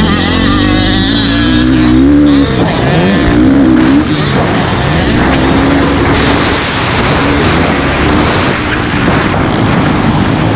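Dirt bike engine revving hard as it is ridden, its pitch climbing, dropping sharply about two and a half seconds in, then rising and falling with the throttle, under a steady wash of wind noise.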